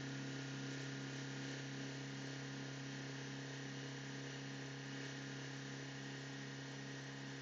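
BMW 118d's 2.0-litre four-cylinder turbodiesel held at high revs, heard from inside the cabin as a steady drone. The engine is being run up to check exhaust backpressure through a blocked diesel particulate filter.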